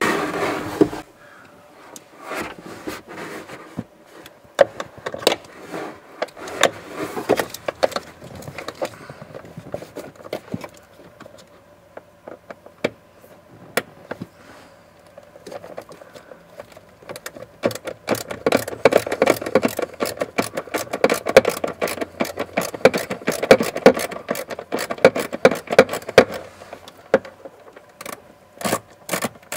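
Ratchet and socket clicking in quick runs as the bolts holding the heater blower motor are backed out from underneath, with scattered knocks of tools against the plastic blower housing.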